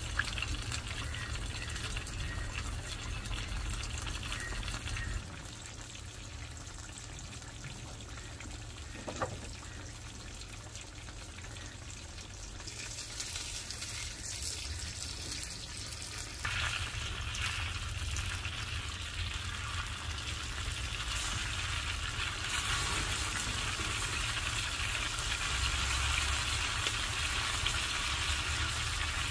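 Tongue sole fillets deep-frying in hot oil in a wide shallow pan, a steady sizzle that grows louder a little past the middle.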